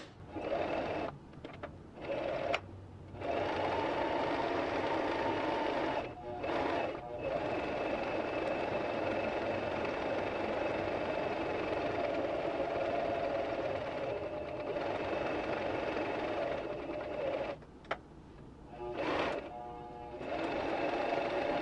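Singer M1500 electric sewing machine stitching a seam, its motor run by the foot pedal in starts and stops: a few short runs, a long steady run through the middle, then more short runs near the end, including reverse stitching to lock the seam.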